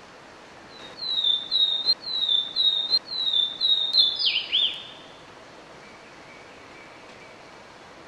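Swainson's warbler singing one song: a string of about seven loud, clear down-slurred whistles, then a quick lower, tumbling flourish to finish, starting about a second in and lasting about four seconds.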